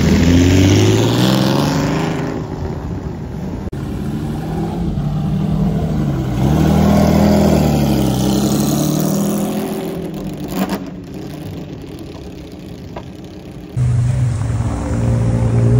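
Sports car engines accelerating and revving as cars pull away one after another, the engine note rising and falling with the throttle. A single sharp crack comes about two-thirds of the way through, and near the end a different engine is suddenly heard running steadily.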